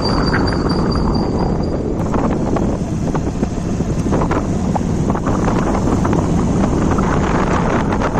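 Honda Shine motorcycle's single-cylinder engine running steadily, heard close up from low down by the engine. It runs on a newly fitted primary gear, and the mechanic says the earlier knocking noise from the primary gear is now cured.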